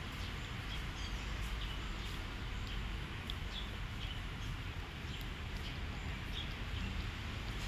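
Puppy eating rice from a plastic bowl: small chewing and smacking clicks over a steady low background hiss.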